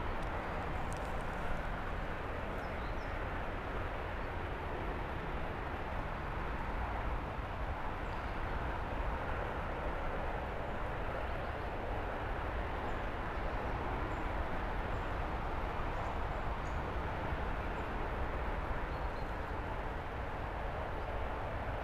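Steady outdoor background noise: an even rushing hiss with a low rumble underneath that holds constant throughout, with a few faint high ticks now and then.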